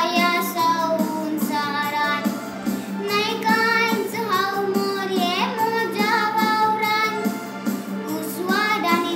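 A young girl singing a Konkani hymn, holding and gliding between notes in a steady melodic line.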